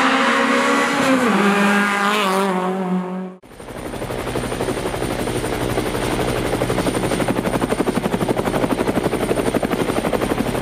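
Renault Clio hillclimb car's engine running at high revs, its pitch stepping down about a second in, then cut off suddenly. It is followed by a steady, rapidly pulsing rotor whirr with a thin high whine.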